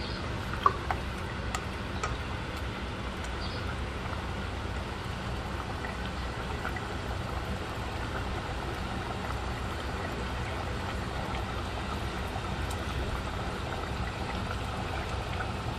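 Pork afritada stew simmering in a pot, its tomato sauce bubbling steadily over a low steady hum. A single sharp click comes about a second in.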